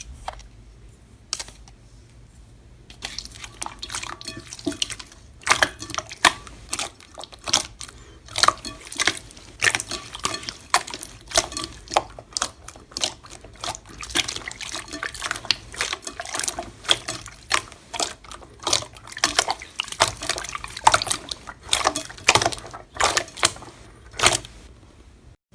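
Slime being squeezed and worked by hand, giving irregular wet clicks and pops. The clicks are sparse at first and come several a second from about three seconds in.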